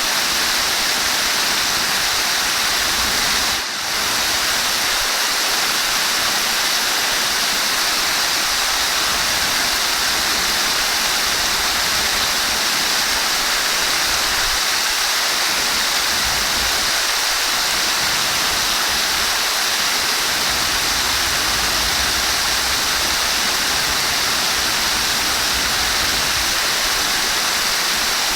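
Flowing water rushing steadily, an even, hissy sound weighted toward the high end, with a brief dip about four seconds in.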